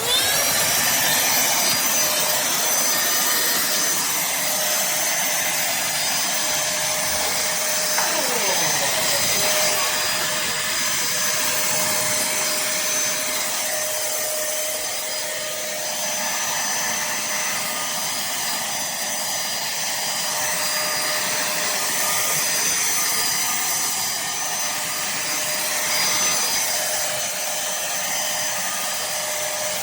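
Pemacom cordless handheld vacuum cleaner cutting in abruptly and then running steadily, a rush of air with a steady motor whine on top, while vacuuming carpet.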